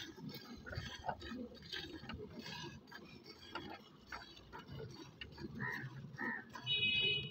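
Hand-milking of a cow into a steel bucket: jets of milk squirting against the metal in a quick, steady rhythm of short ticks. A brief high-pitched tone sounds near the end.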